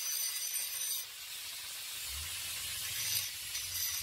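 Parkside PWS 125 E4 angle grinder with a grinding disc grinding a V joint into steel: a steady grinding hiss with high whining tones. The whine fades about a second in, a low hum comes in about two seconds in, and the whine returns near the end.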